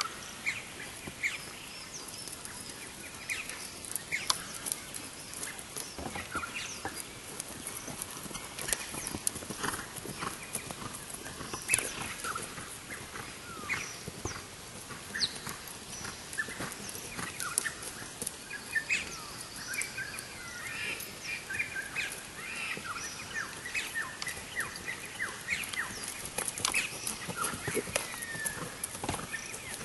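A horse's hoofbeats on grass as it is ridden around the arena, irregular soft knocks over a steady outdoor hiss, with birds calling now and then.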